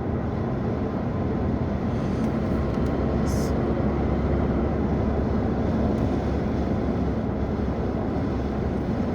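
Steady road and engine noise of a car being driven, heard from inside the cabin, low and even.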